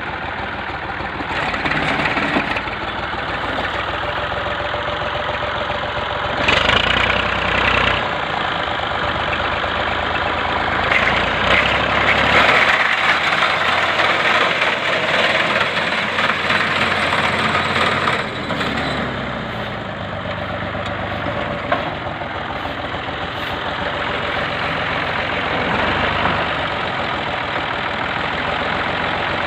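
Massey Ferguson 135 tractor engine running while driving a reaper attachment, a continuous mechanical din that swells louder twice, briefly about a quarter of the way in and again through the middle.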